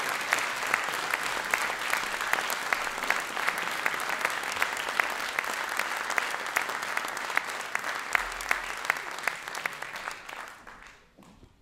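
Audience applauding, a dense crackle of many hands clapping that dies away about ten seconds in.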